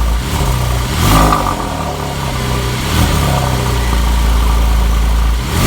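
Porsche 997 Carrera 4S's 3.8-litre flat-six exhaust idling, with short throttle blips about a second in and three seconds in, and another starting near the end.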